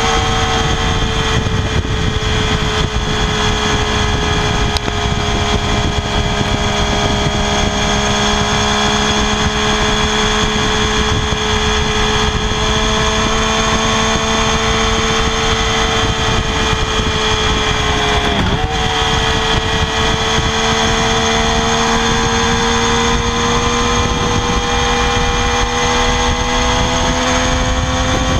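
Stock exhaust of a 2016 Triumph Daytona 675R's 675 cc inline-three engine held at steady high revs, the pitch sagging slightly, dipping sharply and recovering about two-thirds of the way through, then slowly rising near the end.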